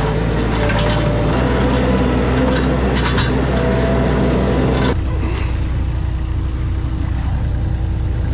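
An engine running steadily, with a few sharp knocks. The sound changes abruptly about five seconds in.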